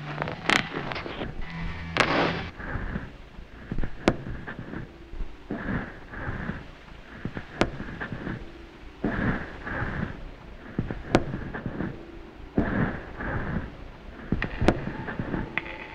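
Experimental noise music: sharp, isolated cracks every few seconds over irregular bursts of rough, crackling noise, with a low hum under the first two seconds.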